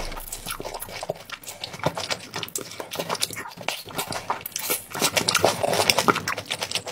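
Loud, wet mouth smacking and chewing of a mukbang eater, a quick, uneven run of clicks that grows louder and busier in the second half.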